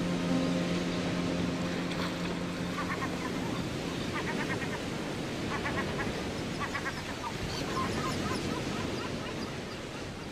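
Birds calling in short runs of quick repeated notes, such as geese or ducks honking, over a steady rushing background. Held music notes fade out in the first few seconds.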